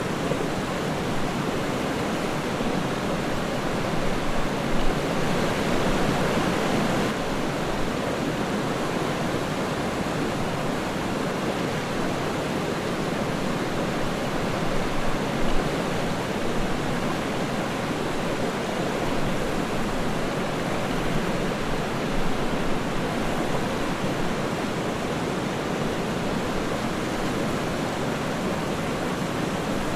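Waterfall: water falling with a steady, even rush.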